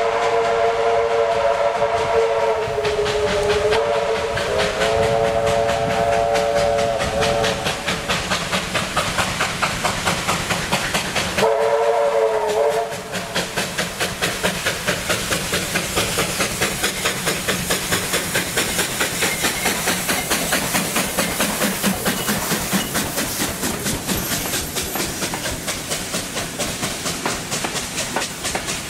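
Steam locomotive's whistle, several notes sounding together, blowing a long blast that wavers in pitch, then a short second blast about twelve seconds in. Throughout, the locomotive's exhaust chuffs in a steady rhythm, about three beats a second once it draws near, with the carriages' wheels clicking over the rail joints as the train passes.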